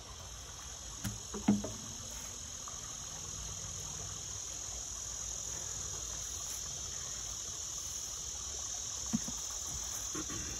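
Steady, high-pitched chorus of insects. A short knock comes about one and a half seconds in, the loudest sound, with a softer one near the end.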